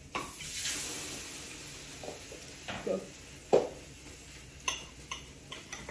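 Dishes and utensils being handled: a brief hiss in the first couple of seconds, then about half a dozen light knocks and clinks, the loudest a little past the middle.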